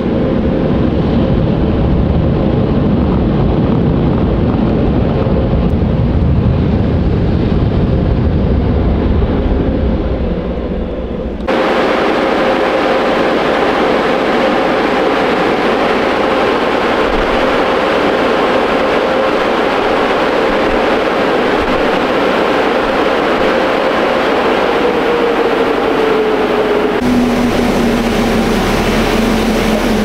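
Touchless automatic car wash running over a car: a loud, steady rush of machinery and spray with a steady hum. The sound changes abruptly about a third of the way in, turning much hissier, and the hum sags in pitch shortly before it changes again near the end.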